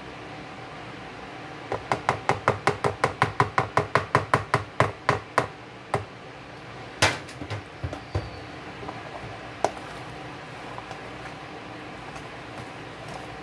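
A spoon clicking rapidly against a container while mayonnaise is scooped and mixed into chicken salad, about five or six clicks a second for nearly four seconds. Then comes one louder knock, followed by a few scattered taps, over a steady low hum.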